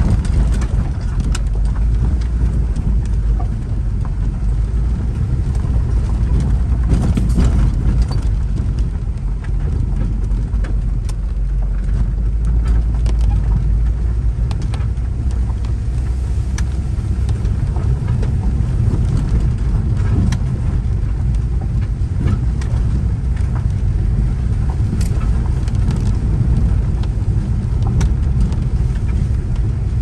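Inside an Audi sedan driving slowly over a rough gravel road: a steady low rumble of tyres and suspension, with frequent small clicks and knocks from stones under the wheels.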